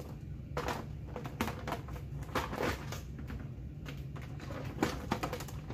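Small card deck boxes being handled and fitted into a plastic storage tote: a run of light, irregular clicks, knocks and scrapes of cardboard and plastic.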